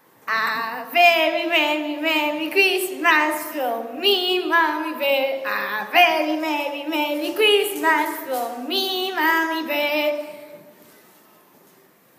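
A young girl singing solo without accompaniment, a string of held, wavering notes that stops a couple of seconds before the end.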